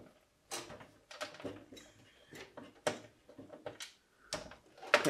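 Scattered light clicks, taps and scrapes of metal parts being handled inside a steel PC case as a double-tower CPU air cooler is worked loose from the motherboard, with a louder clack near the end.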